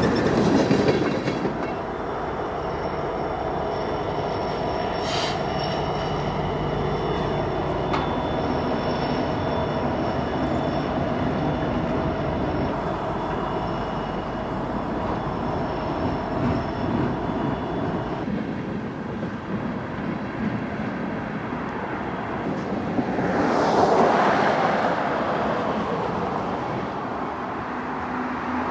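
Railroad cars rolling past, wheels clacking over the rail joints with thin, steady high-pitched wheel squeals that stop about two-thirds of the way through. A rushing swell rises and falls a few seconds before the end.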